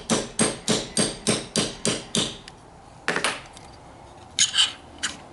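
Small hammer tapping out the bolt catch roll pin of a rifle's lower receiver, steady strikes about three a second that stop a little over two seconds in. A few light metallic clinks follow.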